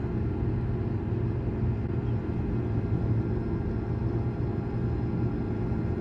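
A steady, even machine hum with a constant low pitch that does not change.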